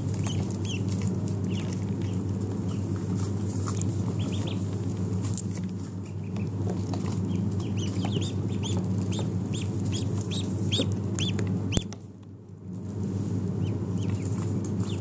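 A brood of ducklings peeping, many short high cheeps overlapping, over a steady low hum. About twelve seconds in comes a sharp knock, after which everything drops away for about a second before the peeping resumes.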